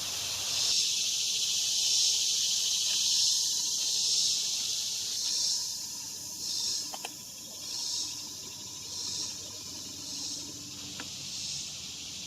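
A high, hissing insect chorus that swells and fades about once a second.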